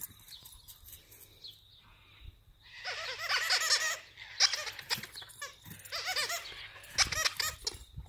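A person laughing in bursts: a loud stretch of rapid laughter about three seconds in, with more laughter around six seconds and short sharp laughs near the end.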